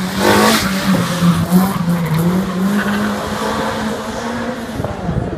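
Slalom race car's engine running hard, its pitch rising and falling with the throttle, with a burst of tyre squeal within the first second.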